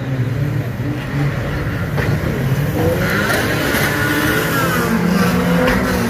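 Engines of a pack of banger-racing vans revving as they race round a dirt oval. They get louder about halfway through as several vans pass close, with pitches sweeping up and then falling away.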